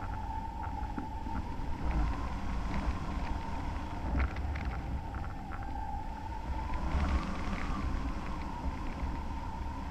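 Airflow rushing and buffeting over a hang glider's wing-mounted camera in flight, a steady low rumble of wind on the microphone. Through it runs a continuous high hum that wavers in pitch and rises briefly about seven seconds in, with a few small clicks.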